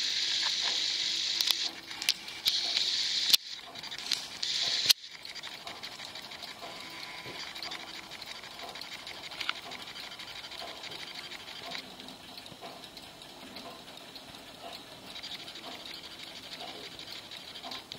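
Antique mother-of-pearl Zappler, a miniature pendulum clock, ticking softly. A loud hiss, broken by short gaps and a few sharp clicks, covers the first five seconds and then stops abruptly.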